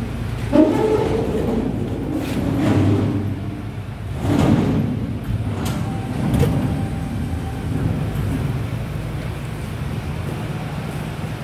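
Motor scooters being handled on a truck's metal cargo deck during unloading: scattered knocks and clanks, the loudest about four and a half seconds in, over a steady low hum.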